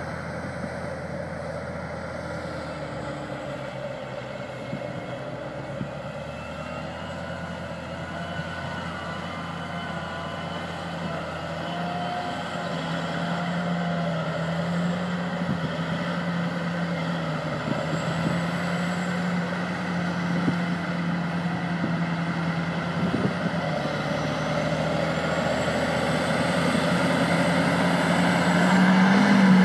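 Large rubber-tracked tractor's diesel engine running under load as it pulls two tandem earthmoving scrapers: a steady drone whose pitch shifts slightly now and then, growing louder as the machine comes closer.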